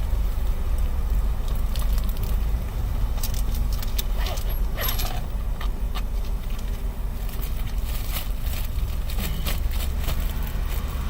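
Steady low rumble of a car heard from inside the cabin, with scattered small clicks and rattles.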